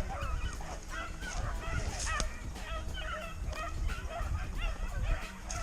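A pack of rabbit-hunting hounds baying and yelping, many short overlapping cries, as they run a rabbit's trail in full chase.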